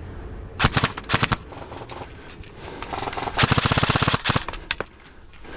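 Airsoft rifles firing: a couple of short bursts about a second in, then a longer rapid full-auto burst of about a second past the middle.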